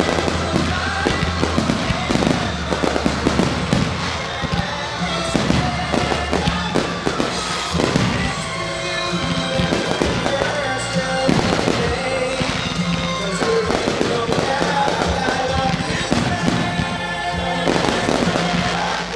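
Fireworks display: aerial shells bursting in quick succession with crackling stars, most densely in the first eight seconds, over music played for the show.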